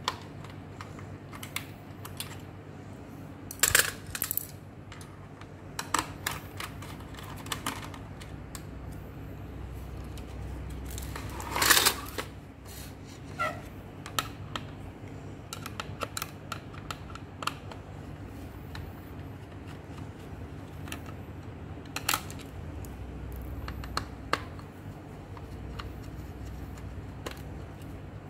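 Scattered small clicks and clinks of screwdrivers and screws on the plastic case of an Epson EB-W01 projector being taken apart, with loose screws set down on a tile floor, and one louder clatter about twelve seconds in. A low steady hum runs underneath.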